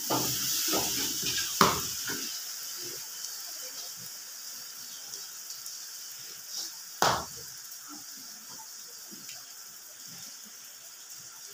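Cooking at a stove: pots, lids and utensils clatter, busiest in the first two seconds, with a sharp clank about seven seconds in. A steady hiss runs underneath.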